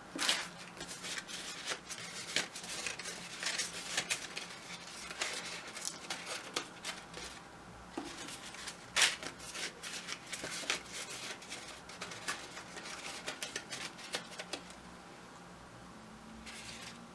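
Crepe paper rustling and crinkling in the hands as petals are stretched and shaped, with irregular crackles and one sharper crackle about nine seconds in.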